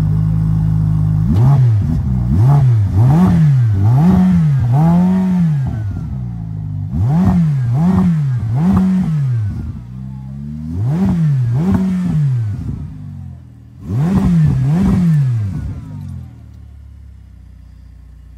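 Ferrari F8's twin-turbo V8 idling while still cold, then revved in quick throttle blips, each rising and falling back, in groups of five, three, two and two. Near the end the engine sound drops away sharply.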